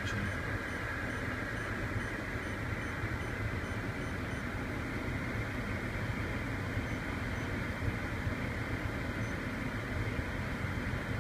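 Steady whoosh and hum of a Dodge Grand Caravan's HVAC blower with the engine idling.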